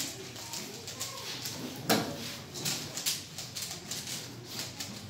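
Several 3x3 Rubik's cubes being turned fast by hand, their plastic layers clicking and clacking irregularly, with a louder clack about two seconds in.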